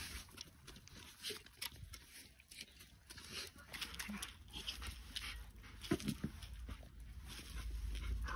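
Bernese mountain dogs at play in snow, giving a few short low vocal sounds around the middle over irregular scuffling and rustling. A low rumble builds near the end.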